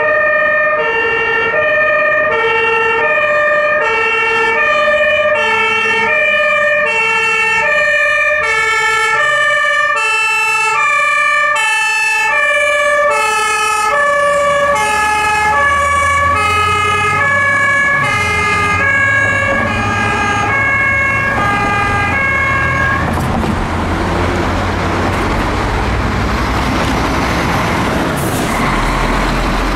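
Fire engine's German two-tone warning horn (Martinhorn) sounding its alternating high-low signal, with a steady high tone alongside. The notes sink slightly in pitch in the second half, then the horn stops a few seconds before the end, leaving heavy truck engine and road noise.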